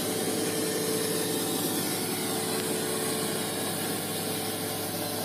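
Large diesel engine of heavy mining equipment running steadily, a constant drone with no change in speed.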